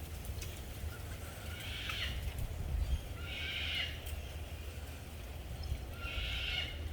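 An animal calling three times, each a short harsh call under a second long, about two seconds apart, over a steady low rumble.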